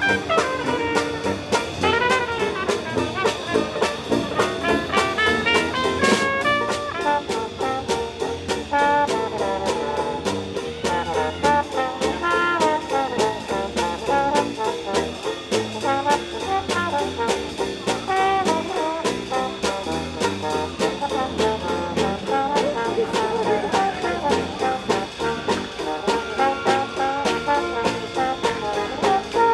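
Upbeat jazzy brass music, trombone and trumpet playing a melody over a steady beat.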